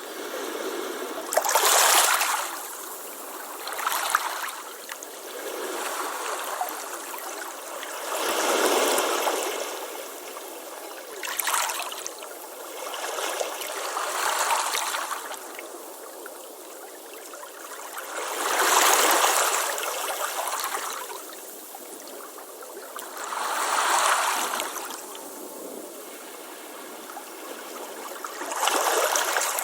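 Ocean waves breaking and washing up a beach, swelling and hissing in irregular surges every few seconds, then easing back between them.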